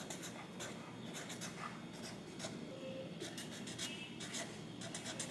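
Sharpie permanent marker writing on a kraft-paper gift tag: faint, short, irregular scratchy strokes as the letters of a name are written.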